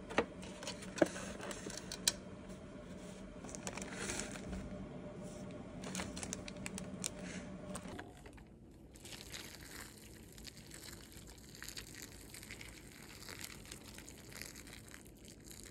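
Plastic film and seasoning packets of a cup of instant noodles crinkling and tearing as it is opened, with a few sharp clicks in the first two seconds. From about halfway on, a steady soft hiss of hot water pouring into the cup.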